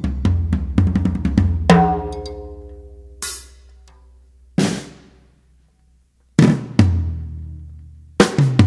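Drum-kit music with deep bass: kick and snare hits over a low sustained bass, a ringing pitched note early on, then the beat drops out briefly about two-thirds in before the drums come back hard.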